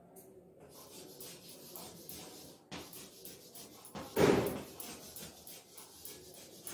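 Chalk tapping and scraping on a blackboard as words are written, a string of short clicks. About four seconds in, a brief louder sound stands out.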